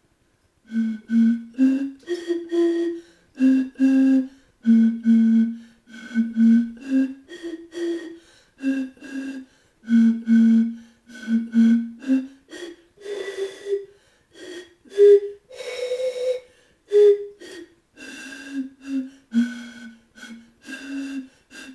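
A tune played by blowing across the mouths of a row of empty Budweiser beer bottles: a run of short, breathy hooting notes at several different pitches, following one another in a rhythm, starting about a second in.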